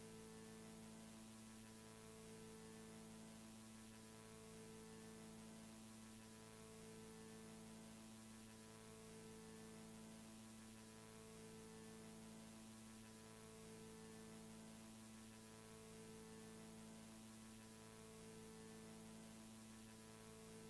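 Faint low electronic hum: a few steady low tones, with a couple of other tones that cut in and out in a repeating cycle about every two seconds.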